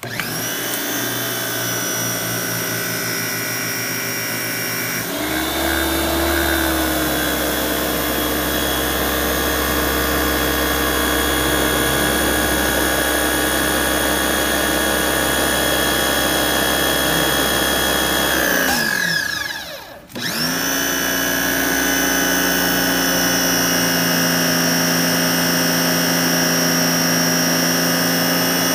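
Electric high-pressure washer (1600 W, 2600 PSI) motor and pump switched on, running with a steady whine. About five seconds in the sound drops in pitch and grows a little louder with a deep hum. Near the end of the second quarter it winds down in pitch to a brief stop, then spins straight back up and runs steadily again.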